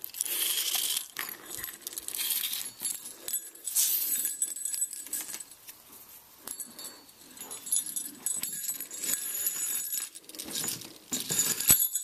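Small metal jingle bells on a leather dog collar jingling and clinking off and on as they are handled, with the rustle of leather lace being pulled through a bell and the collar holes. The jingling is busiest at the start, about four seconds in and near the end, with a quieter stretch in between.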